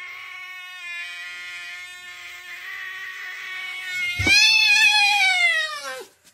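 Cat yowling in a standoff with another cat through a screen door: a long, steady low yowl, then a thump about four seconds in and a louder yowl that rises and then falls in pitch.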